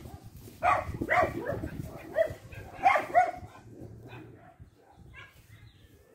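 A dog giving a run of short, high-pitched barks and yips. They are loudest about a second in and again near three seconds, then trail off.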